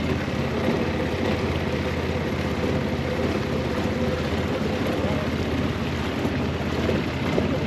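Motorboat engine running steadily while the boat is under way, with a constant low drone.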